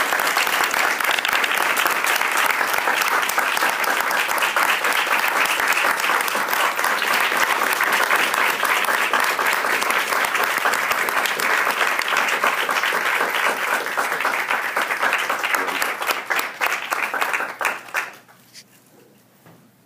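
Audience applauding, a standing ovation: dense, steady clapping from a roomful of people that dies away about eighteen seconds in.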